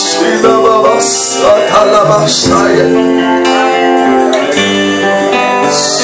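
Worship music playing, with held chords that change every second or so; a bright shimmer comes in near the end.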